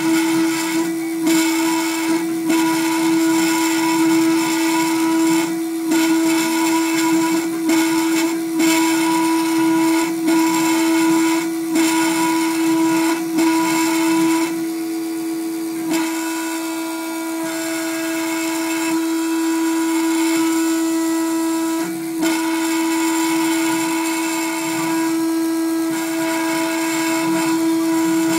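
Gravograph IS400 engraving machine's spindle running with a steady high whine as its cutter engraves two-layer plastic, dipping briefly now and then and going quieter for a moment about halfway through.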